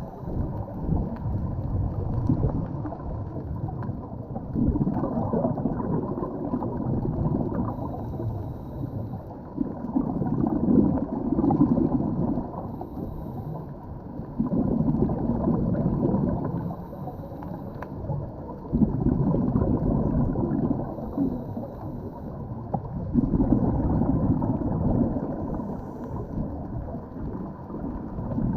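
A scuba diver breathing underwater: a muffled rush of exhaled bubbles comes every four to five seconds, with quieter water noise between breaths.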